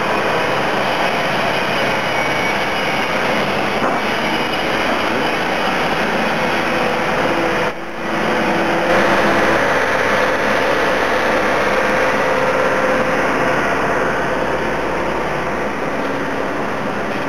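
Diesel engines of construction machinery, an excavator and a wheel loader, running with a steady drone. It drops out briefly about eight seconds in and comes back a little louder.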